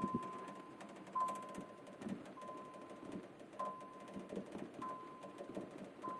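A car's electronic warning chime dinging about once every 1.2 seconds, over irregular knocking and rattling from a 318 V8 misfiring badly in drive and shaking the car.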